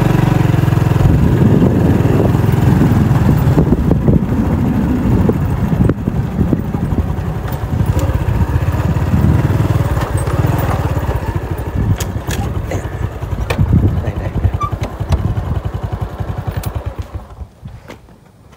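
Motorbike engine running as it is ridden over a rough dirt track, with scattered knocks and rattles. The engine sound drops away near the end.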